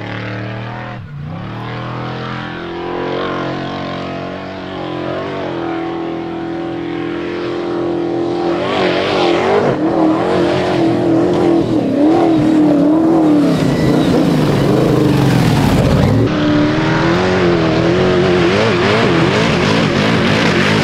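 Off-road prerunner truck engine revving, its pitch rising and falling as the throttle comes on and off, getting louder about eight seconds in and staying loud.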